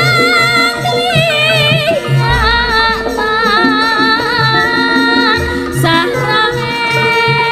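Javanese gamelan music accompanying wayang kulit: a female sinden sings long, wavering notes over a steady low drum pattern, with deep booming strokes about two seconds in and again near six seconds.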